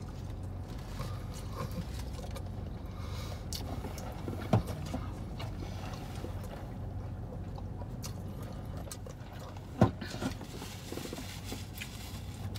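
Steady low hum of a car's cabin, with two short sharp sounds, about four and a half and ten seconds in.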